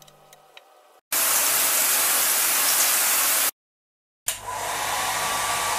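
Loud steady rushing noise in two stretches, each starting and stopping abruptly with a short silence between them; the second carries a faint steady tone. Before it, the tail of music fades out.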